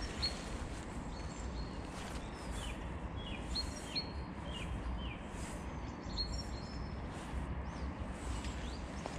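Small birds chirping, with many short high notes that drop in pitch and come in scattered bursts, over a steady low rumble of outdoor background noise.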